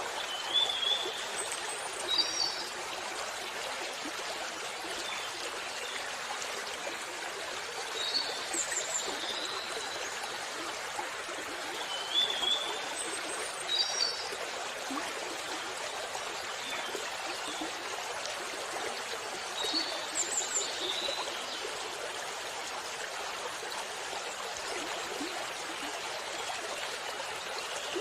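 Waterfall: a steady rush of falling water, with short high bird chirps over it every few seconds.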